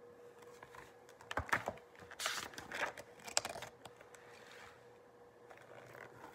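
Picture-book pages being turned and handled: a cluster of quick rustles and light taps in the first half, then quieter handling. A faint steady hum runs underneath.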